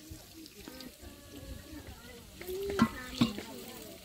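Food frying in a cooking pot as it is stirred, with a low sizzle. Brief voices call out in the background twice, near the end.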